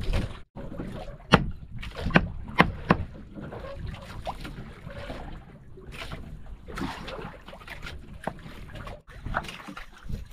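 A heavy knife cutting fish bait on a wooden board, with several sharp knocks of the blade striking the board about one to three seconds in, over wind on the microphone and sea noise.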